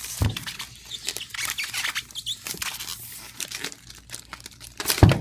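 Plastic film crinkling and styrofoam packing rubbing and creaking as a wrapped speaker is handled in its box, with a thump just after the start and a louder one near the end.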